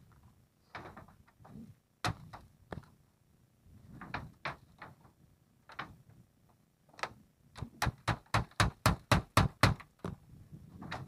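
Hammer blows: a few scattered knocks, then near the end a quick run of about a dozen strikes, roughly five a second, as a nail is driven home.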